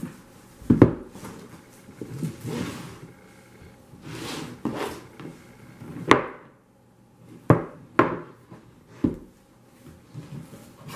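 A cardboard retail box being set down, tipped over and handled on a wooden coffee table: several sharp thumps, the loudest about a second in, with cardboard sliding and rustling between them.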